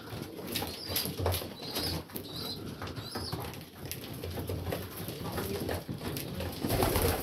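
A flock of domestic pigeons cooing, with many light clicks of beaks pecking grain at a feeder.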